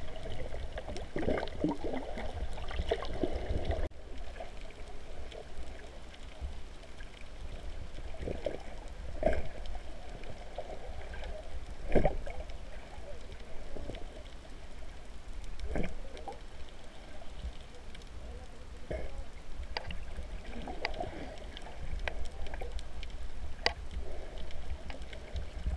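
Water heard underwater through an action camera's waterproof housing: a steady low rumble with gurgling and sloshing, and scattered clicks and knocks, the loudest about twelve seconds in.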